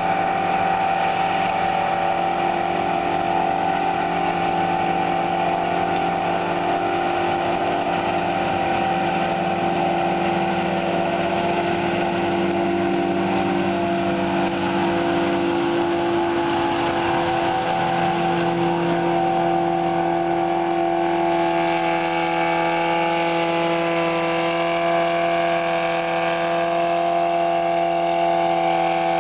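Farmhand forage harvester chopping silage: its Detroit Diesel engine runs steadily under load, the pitch shifting slightly a little past halfway.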